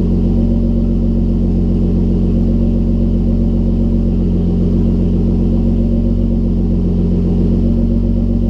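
Car engine running at a steady speed, a low, even drone with no revving.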